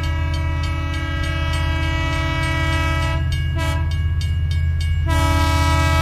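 A train horn sound held steadily over a fast, low rattle, as the toy train runs on its track; the higher tones drop out briefly between about three and five seconds in.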